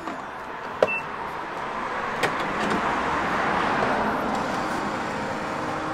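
A car passes, its tyre and engine noise swelling and then easing off over a few seconds. There is a click and a short electronic beep about a second in.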